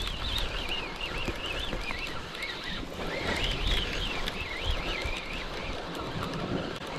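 Spinning reel being cranked to bring in a hooked fish, its gears giving a high whine that wavers up and down over and over, over steady wind noise on the microphone. The whine fades out about two-thirds of the way through.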